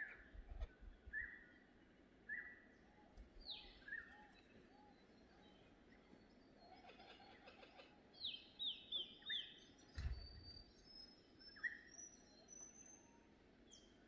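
Several birds calling faintly: scattered short chirps, a quick run of four falling whistled notes about two-thirds of the way in, and thin high notes near the end. A single low thump sounds about ten seconds in.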